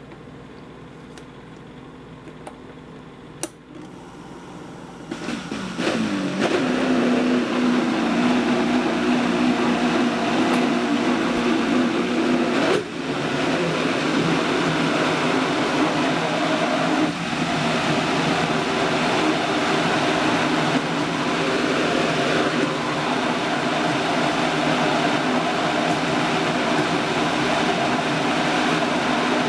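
Countertop blender with a variable-speed dial blending a strawberry banana smoothie of fruit, milk and ice. It runs quieter at low speed, then about five seconds in the speed is turned up and the motor runs loud and steady, dipping briefly twice.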